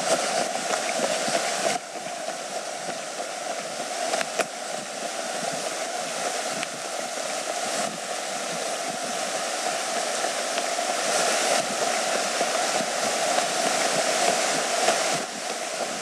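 Steady rushing of the Dunajec river's shallow rapids, mixed with the noise of moving along a gravel path, with a few sharp clicks. The level drops suddenly about two seconds in.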